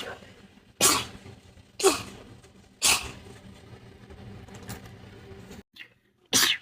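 A person in a rapid sneezing fit: three sharp sneezes about a second apart, then a quieter stretch, and another sneeze near the end.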